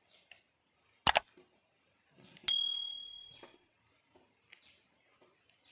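Knife chopping chicken on a large metal platter: two sharp chops about a second in, then a harder strike about halfway that sets the platter ringing with a clear metallic tone that fades over about a second.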